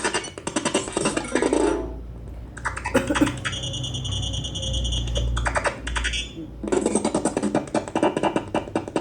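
MIDI rendition of a Nokia ringtone playing. Fast, dense notes break off about two seconds in into a low held bass with steady high tones, and the fast pattern comes back near the end.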